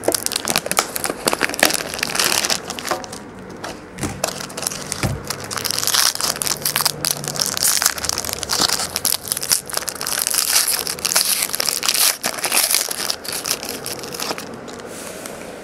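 Wrapper of a trading-card pack being torn open and crinkled, with cards being shuffled and handled: steady crackling and rustling with many small clicks.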